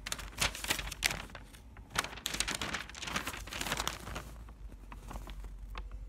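A sheet of lined notebook paper rustling and crinkling as it is handled and slid across a blanket, in irregular bursts that are busiest in the middle.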